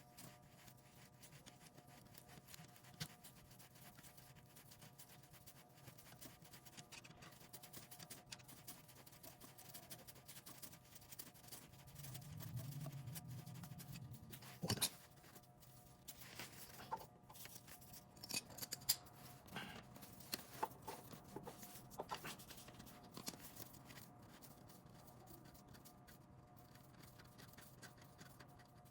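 Faint, scattered metallic clicks and scrapes of a thread tap being turned by hand in the stripped oil drain hole of a Harley-Davidson Sportster's aluminium primary cover, to recut the damaged female thread. The clicks are sparse at first and come more often about halfway through.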